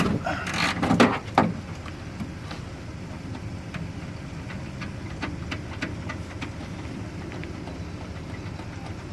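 Tools working on a stuck wafer door lock: a few loud knocks in the first second and a half, then scattered light metallic clicks, over a steady low hum like an idling engine.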